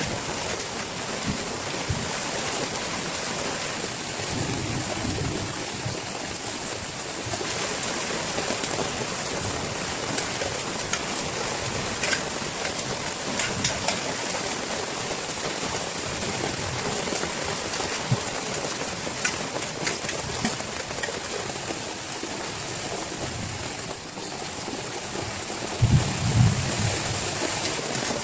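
Heavy rain pouring steadily, with scattered sharp ticks of drops striking and a brief dull low thump near the end.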